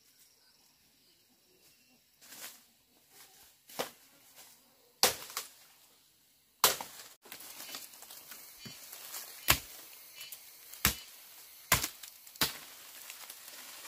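Sharp knocks of a tool striking wood, about eight loud blows at irregular intervals, as in coop repair work.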